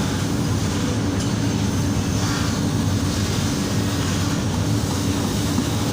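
Steady mechanical running with an even low hum that holds constant throughout.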